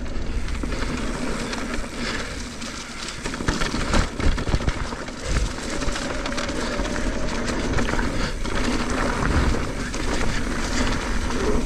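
Mountain bike rolling fast down a dirt flow trail: steady tyre noise on dirt and a low rumble, with the bike rattling and several sharp knocks from bumps and landings.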